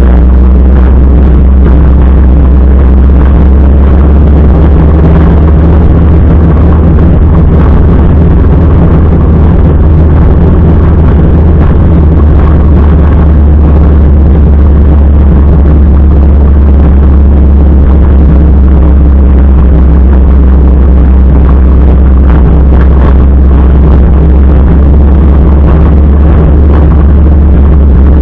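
Motorcycle engine running steadily while riding, loud, with an unbroken low drone.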